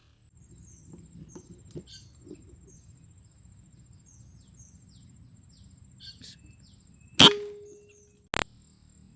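Quiet forest ambience with scattered small bird chirps and a steady high insect whine, then a single sharp air rifle shot about seven seconds in, with a short ringing tail. A brief click follows about a second later.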